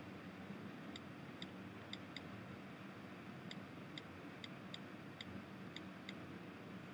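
iPad on-screen keyboard key clicks: about eleven short ticks at an uneven pace as the digits and dots of an IP address are typed, over a faint steady hiss.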